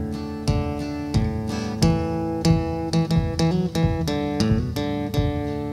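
Background music: acoustic guitar strumming chords in a steady rhythm, with no singing.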